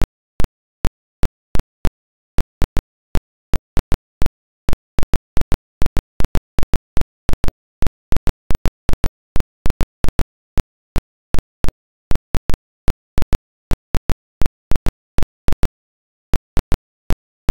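Sharp clicks at irregular intervals, a few a second, with silence between them and no other sound.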